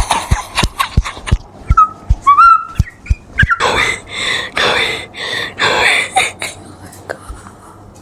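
Excited celebration: a quick run of sharp thuds or claps, a high rising squeal, then several loud breathy screams.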